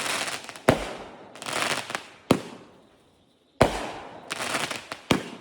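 Consumer fireworks going off: four sharp bangs roughly a second and a half apart, with crackling between them.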